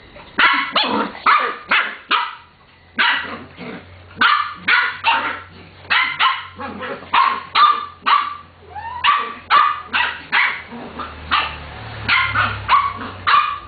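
Small dogs barking over and over in excited play: sharp, high barks in quick runs of about two a second, with brief pauses between runs.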